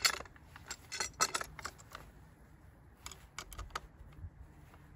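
Metal tool and fittings clinking against a brush cutter's gear head as the blade deflector is fitted: a run of light metallic clicks and clinks, thickest in the first two seconds and again about three to four seconds in.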